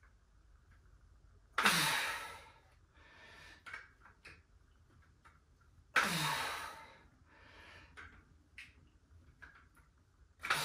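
A man exhaling hard with a sighing, falling groan twice, about four seconds apart. These are effortful breaths on the lifting phase of dumbbell chest flyes.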